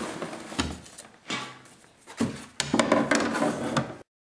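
Handling noise: scattered knocks and a denser stretch of clattering and rubbing as gear and the camera are moved about, cutting off abruptly to dead silence near the end.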